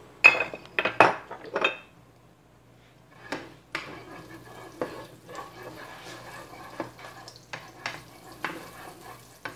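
Spatula knocking and scraping in a frying pan: several sharp clacks in the first two seconds, then steady stirring through melted butter and oil with scattered lighter taps and a faint sizzle.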